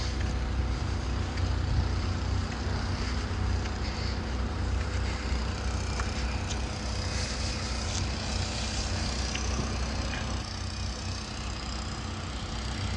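An engine running steadily: a low, even rumble with a faint steady hum over it.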